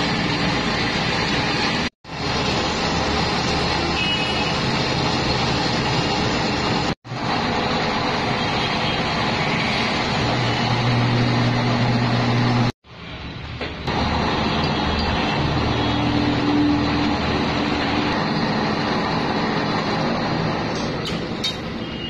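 Metal lathe running, its cutting tool turning a small metal knob blank and peeling off chips: a steady, dense machine noise with a low hum that grows stronger a little past halfway. The sound cuts out abruptly three times.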